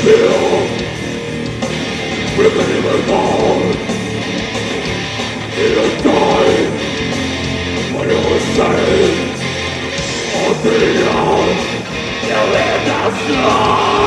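Live heavy metal band playing: distorted electric guitars and a drum kit, with the vocalist singing phrases into the microphone every few seconds.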